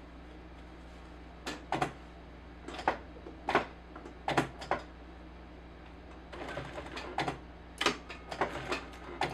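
Sewing machine stitching slowly in short spurts, a stitch or a few at a time, giving sharp irregular clacks over a steady low hum. The needle is going back over a seam where the invisible monofilament thread had broken.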